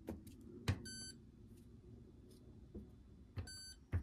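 Electronic beeps from a Hoover Dynamic washing machine's control panel: two short high beeps, about a second in and again after three and a half seconds, with a few sharp clicks around them, as of buttons or the programme dial being worked.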